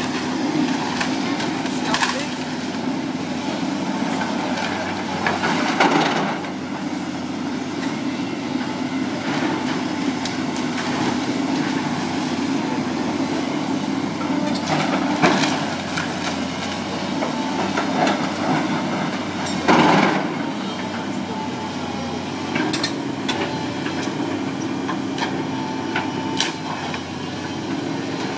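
A house being demolished by machine: an engine runs steadily while the wooden structure cracks and crashes several times, with a few louder crashes spread through.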